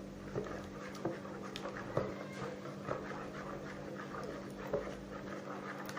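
Wooden spoon stirring a wet semolina dough in a bowl: soft, repeated scraping and slapping, with a couple of light knocks of the spoon.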